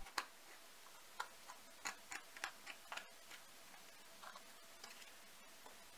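Faint, irregular soft clicks and ticks of a plastic dough scraper scraping sticky bread dough off fingers, more frequent in the first half.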